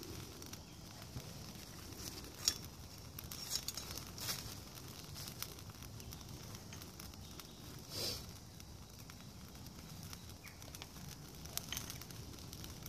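Small stainless wood gas stove burning a load of split wood kindling, freshly lit from the top: a soft fire noise with scattered sharp snaps and pops, the loudest about two and a half seconds in.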